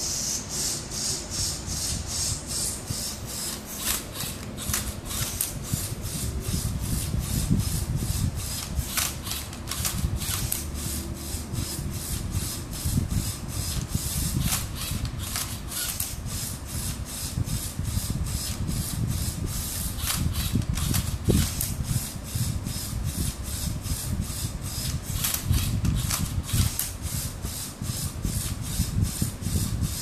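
LEGO Mindstorms EV3 Rubik's cube robot (MindCub3r) at work: its motors and plastic gears turn and flip the cube in its tray. The sound is a rhythmic plastic rasping, about two strokes a second, over a low rumble.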